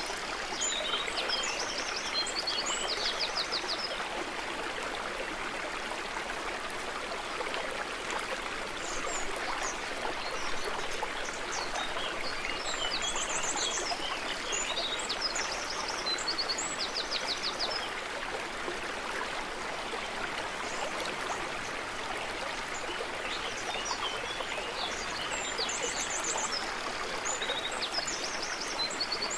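Small stream flowing steadily over stones, with a songbird singing a short phrase of chirps and rapid trills three times, about every twelve seconds.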